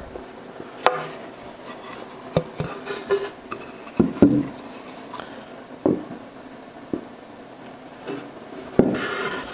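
Wooden boards knocking and rubbing against a wooden workbench as a glued-up back panel with its shelf is handled, flipped over and stood on end: a handful of scattered knocks with some sliding between them.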